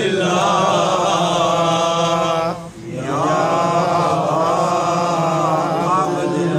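A man's voice chanting an Arabic devotional recitation in a drawn-out, melodic style, with long held notes and a pause for breath about two and a half seconds in.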